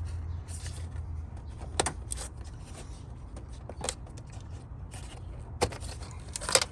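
A few sharp clicks and knocks, spaced a second or two apart, from parts being handled and taken off under the hood, over a steady low hum.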